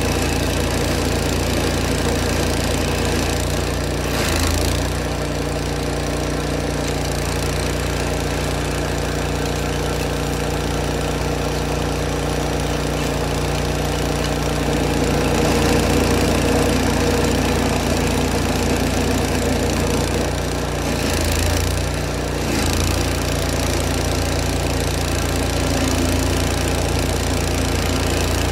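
Old Vermeer stump grinder's engine running steadily, with a brief change in its sound about four seconds in and again about twenty-one seconds in.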